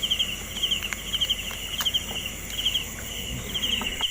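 Insects chirping in short pulsed trills, a group about every half second, over a steady high insect hum, with a few faint clicks.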